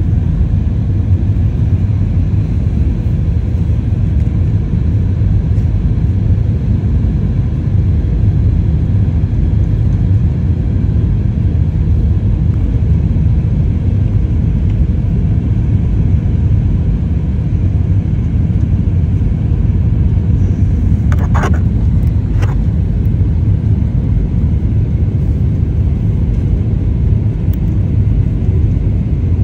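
Steady low rumble of engine and airflow noise inside an Airbus A320's passenger cabin on final approach, with two brief clicks about two-thirds of the way through.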